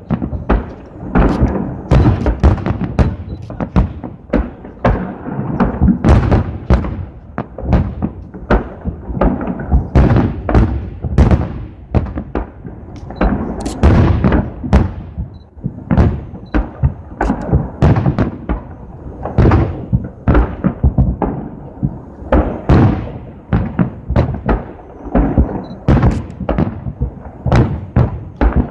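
Aerial firework shells bursting in a continuous, irregular barrage of booms, about two a second.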